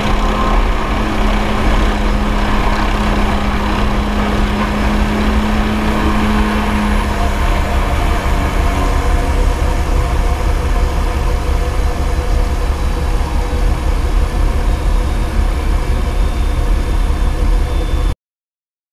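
MD500C helicopter's turbine and main rotor running steadily as it hovers and sets down on a ship's helideck. A steady hum in the sound fades out about seven seconds in, and all sound cuts off suddenly near the end.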